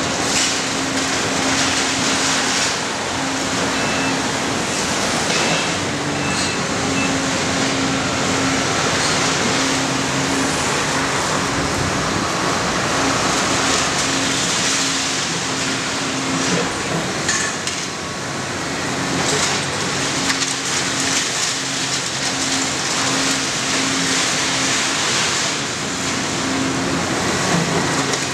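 Large tracked demolition excavator working: its diesel engine running under load with a throbbing low note, over a steady hiss and scattered knocks and clatter of debris as the building is pulled apart.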